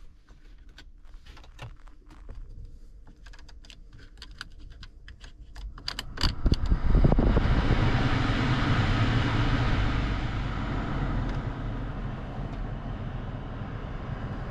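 Land Rover Discovery Sport 2.0 diesel being cranked in a no-start test: light clicks, then from about six seconds in a loud, steady mechanical noise that eases off a little toward the end.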